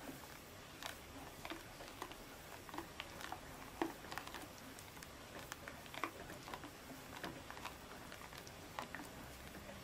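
Silicone spatula stirring thick lemon custard in a stainless steel saucepan. It scrapes the bottom of the pan, making irregular soft wet clicks and squelches, about one or two a second. The custard is thickening as it cooks.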